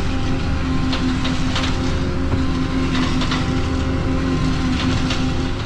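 Tractor engine running steadily while pulling a hay rake through a windrow, a constant drone with a pulsing tone and scattered rattling clicks from the rake.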